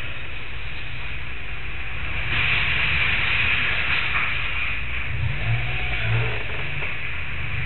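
An engine running with a steady low rumble, with a louder hissing swell from about two seconds in that eases off near five seconds.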